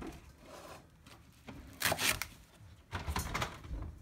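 Kitchen knife chopping through a leek onto a wooden cutting board: several sharp knocks of the blade on the board, with softer slicing and rubbing sounds between.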